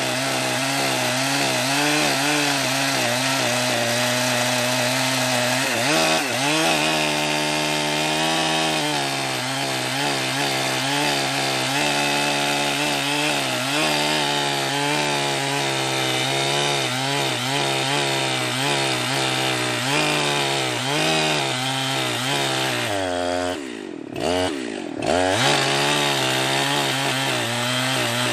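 Jonsered 2071 two-stroke chainsaw running at high revs while cutting wood, its pitch wavering with the load. About 23 seconds in, the revs drop sharply twice and then pick up again.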